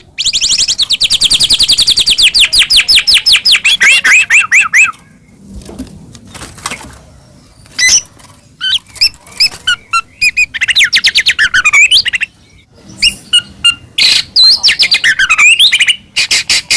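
White-rumped shama (murai batu) singing loudly. It opens with a rapid run of repeated sharp notes, about ten a second, that slide lower in pitch near the end. After a short break come varied phrases of clear whistles and sweeping notes.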